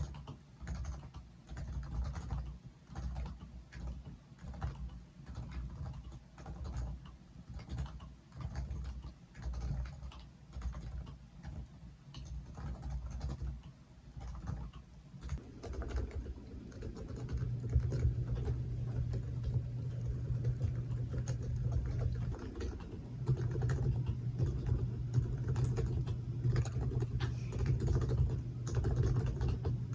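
Typing on a modified Topre Realforce keyboard, its electrostatic capacitive switches giving soft, muted keystrokes. It starts with bursts of keystrokes, and about halfway through turns into faster, louder continuous typing.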